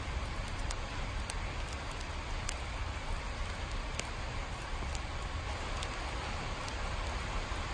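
Steady rain falling, with a low rumble underneath and scattered single drops ticking sharply every so often.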